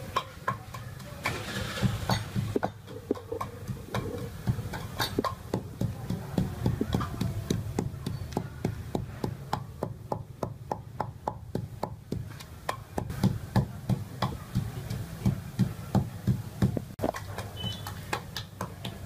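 Wooden pestle pounding in a mortar, crushing salt, garlic and chili, in a steady rhythm of dull thuds about two to three strokes a second.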